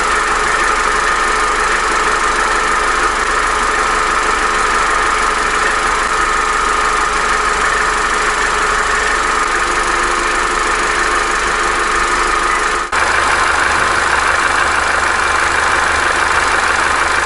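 Opel Corsa D's A14XER 1.4-litre four-cylinder petrol engine running steadily; about thirteen seconds in the sound changes abruptly to a fuller note with more low rumble. The mechanic finds the timing chain slack on this engine, which throws cam-timing codes P0011 and P0014.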